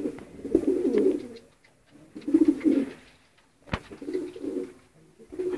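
Racing pigeons cooing in short, low, warbling phrases that repeat every second or two. A single sharp click comes a little past halfway.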